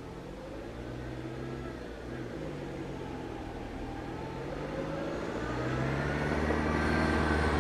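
A car's engine pulling in second gear up a muddy, rutted track. Its pitch dips and then rises again, and it grows steadily louder as the car comes closer.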